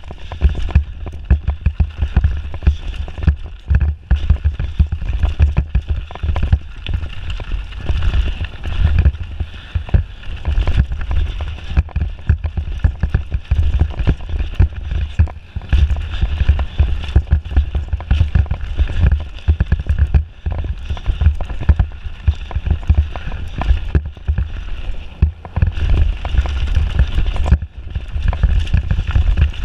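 Mountain bike descending a rough dirt forest trail: wind buffeting the camera microphone with a heavy rumble, under tyre noise on dirt and many quick knocks and rattles from the bike over roots and stones.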